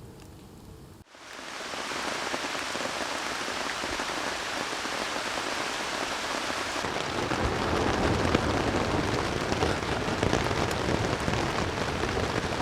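Heavy rain pouring down in steady, dense hiss. It starts abruptly about a second in and grows heavier and louder from about seven seconds in.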